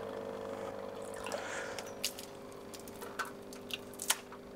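Water dripping and splashing in short scattered drops as wet clumps of filamentous algae and floating plants are lifted out of an aquarium by hand, over a steady low hum.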